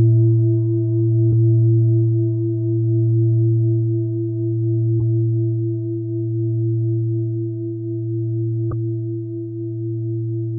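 A deep singing bowl ringing in one long, slowly fading tone that wavers in loudness, with a few higher overtones above it. Faint clicks come three times, a few seconds apart.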